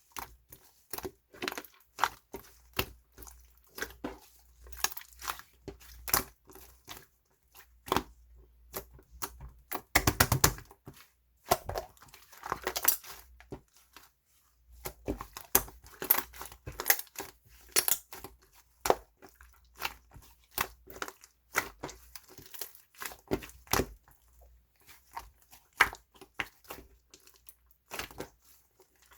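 Grape fondue slime being squished and stretched by hand, giving dense, irregular sticky pops and crackles; the slime is full of trapped air bubbles.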